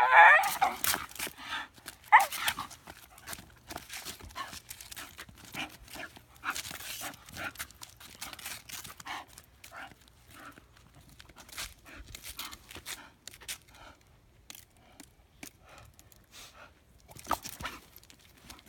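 Bull terrier making a string of odd vocal noises. A loud wavering cry comes at the start and a sharp yelp-like sound about two seconds in, followed by a long run of quieter short breathy huffs, with one louder one near the end.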